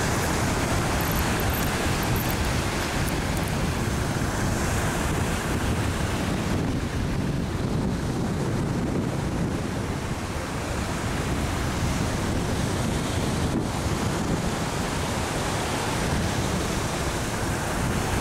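Steady noise of surf washing on a beach, with wind buffeting the microphone.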